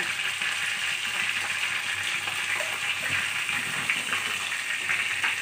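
Potatoes, onion and spice pastes sizzling in hot oil in an aluminium kadai: a steady hiss.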